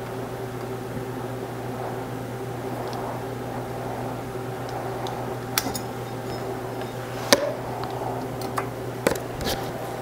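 A razor blade scrapes and clicks against a welded steel sprocket hub, cutting away stuck electrical tape. There are a few sharp metallic clicks, the loudest about seven seconds in. A steady low hum like a running fan sits under it all.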